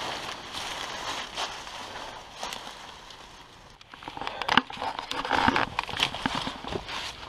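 Footsteps crunching and crackling over loose rubble and undergrowth, with rustling, growing louder and busier about four seconds in.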